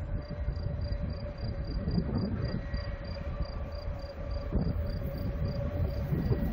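Bernina Railway train running round a curve, heard from on board: a low rumble of wheels on rail with a faint steady whine, and a high, short chirp repeating evenly about four times a second.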